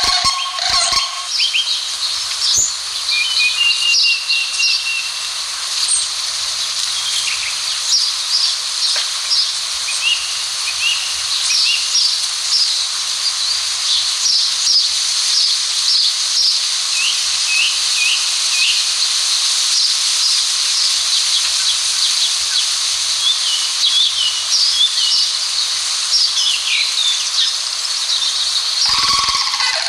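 A chorus of small birds chirping and twittering over a steady high hiss, with a large bird's honking call in the first second.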